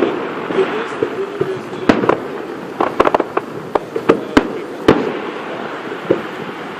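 Fireworks going off: a string of sharp bangs at irregular intervals, several close together in the middle, over a continuous noisy background.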